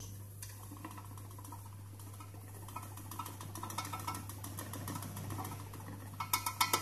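Electric milk mixer running with its paddle turning in the empty aluminium bowl: a steady low hum with a rapid rattle of clicks, which gets louder near the end.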